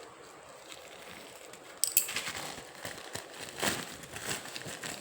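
A mail parcel being opened by hand: two sharp clicks about two seconds in, then the packaging crinkles and rustles irregularly.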